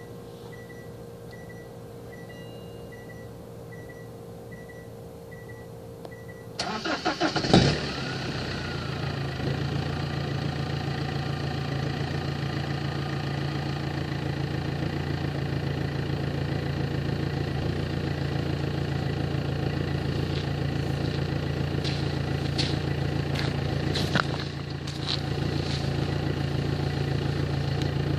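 BMW 320d E90 163 hp four-cylinder turbodiesel, rear silencer removed, started from cold. After a faint repeated beep it cranks for about a second some six seconds in, catches with a loud burst and settles into a steady idle through the open exhaust. The idle dips briefly near the end.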